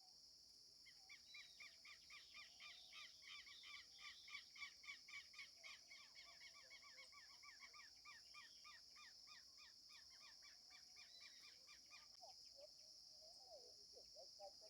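A bird giving a long rapid series of honking, nasal call notes, several a second, growing louder and then fading out about twelve seconds in. A steady high insect drone runs underneath.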